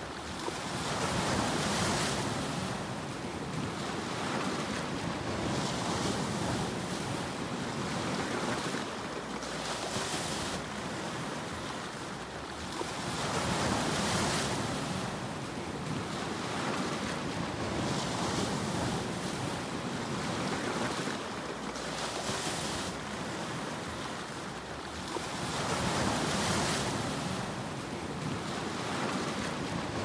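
Ocean surf washing and breaking over shoreline rocks: a continuous rush of water that swells louder as each larger wave breaks, three times.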